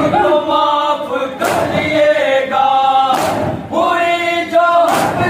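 A group of men chanting a nauha lament in unison, with loud collective chest-beating (matam) striking together about every second and a half, three strokes in all.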